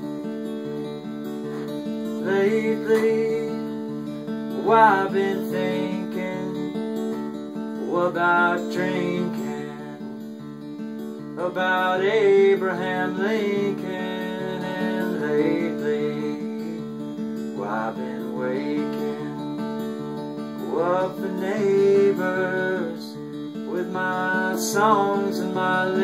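Acoustic guitar playing ringing chords, with a voice singing along in short phrases that bend in pitch.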